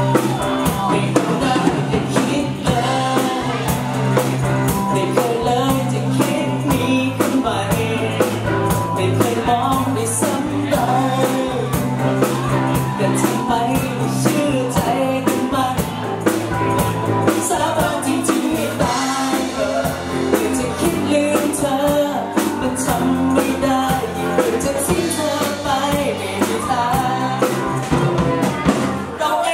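A live band playing a pop-rock song with electric guitar, bass guitar and keyboard over a steady drum beat, with a man singing lead.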